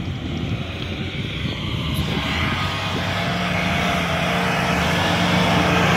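Off-road 4x4's engine working under load in deep snow, a steady drone that grows steadily louder.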